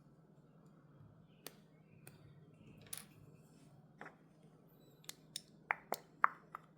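Small clicks and snips from handling medicine packaging while measuring out a dose for an IV drip: a few isolated clicks, then a quick run of sharper ones near the end.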